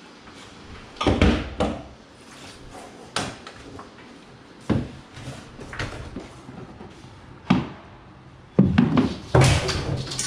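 Scattered knocks and bumps as a long board strip and the stepladder are handled, several single thuds a second or two apart. A louder run of bangs comes near the end, as the strip is lifted up against the wall.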